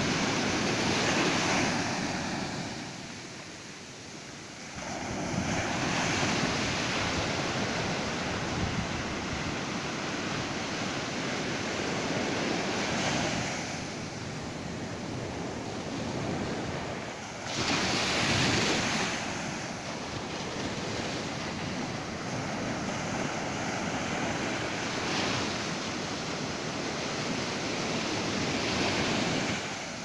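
Ocean surf breaking on a sandy beach, a series of waves crashing and washing up the shore every few seconds, the loudest a little past halfway.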